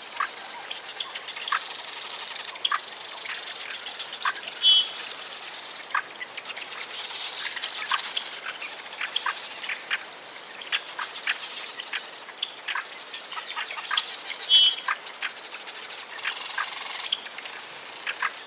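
A busy chorus of many birds chirping and calling, with a few louder short whistled notes standing out about five seconds in and again near fifteen seconds in.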